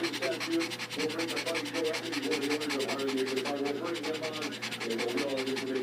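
Shih Tzu panting fast and hard with its tongue out, a quick steady rasping rhythm of breaths: anxious stress panting from a dog frightened by the rain.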